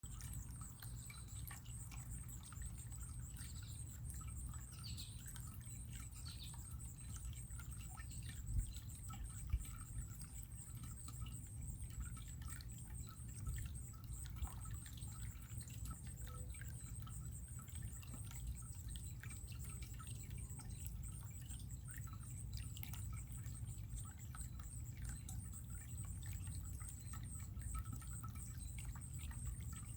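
Water running and trickling steadily, with birds chirping now and then and a steady high-pitched pulsing hum over it. Two brief thumps come about eight and nine seconds in.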